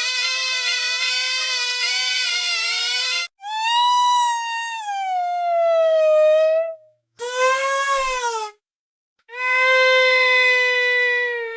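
A toddler crying in long, drawn-out wails, with short gaps for breath between them. The first wail wavers and breaks off about three seconds in. The next slides down in pitch, a short one rises and falls, and a long steady wail runs to the end.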